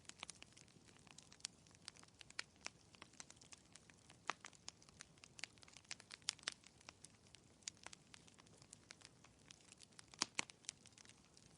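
Fireplace crackling: soft, irregular pops and snaps over a faint hiss, with a few louder pops about four seconds in and again near the end.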